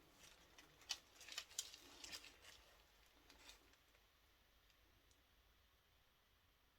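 A few faint, short clicks and light taps of small objects being handled, spread over the first three seconds or so, then near silence.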